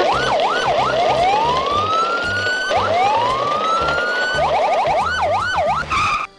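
Police-style siren sound effect: a few quick up-and-down wails, two long rising whoops, a fast run of yelps, then wailing again. It plays over background music with a steady low beat.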